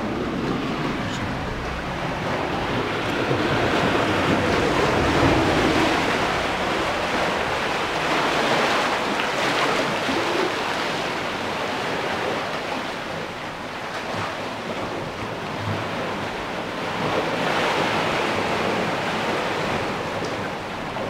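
Sea waves surging into a narrow rock channel and breaking into foam: a loud, steady rushing that swells and eases several times.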